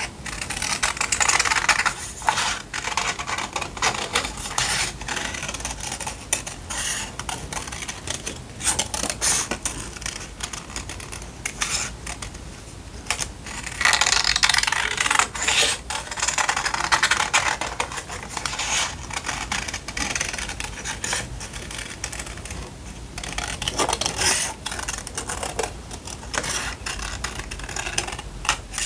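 Paper being handled: sheets and cut pieces rustling and rubbing against each other, with small taps and clicks, in louder spells about a second in and again around the middle.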